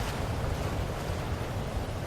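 Ocean surf: a steady wash of waves with a low rumble, one wave having eased off and the next starting to build.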